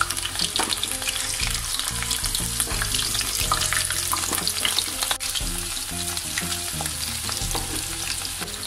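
Batter-coated chicken pieces frying in hot oil in a pan: a steady sizzle with dense fine crackling as more pieces go into the oil.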